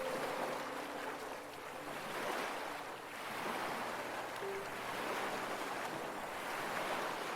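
Gentle ocean waves washing in and out, swelling and easing about every two to three seconds, with faint soft music tones underneath.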